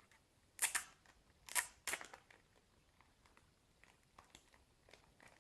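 Paper rustling as a printed user manual is handled and its pages are turned: three short, crisp rustles in the first two seconds, then only faint small rustles and clicks.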